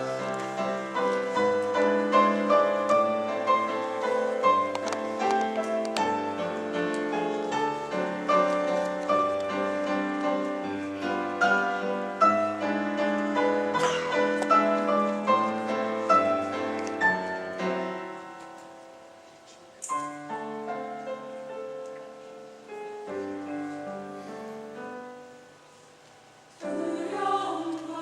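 Piano playing the introduction to a choral anthem, with many struck, ringing notes. It eases into a softer, sparser passage about eighteen seconds in, and the choir comes in singing near the end.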